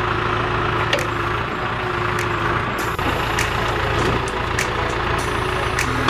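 John Deere 310G backhoe's diesel engine running steadily as the rear boom and bucket work down into dry brush, with a steady whine through the first half and scattered sharp cracks of snapping brush.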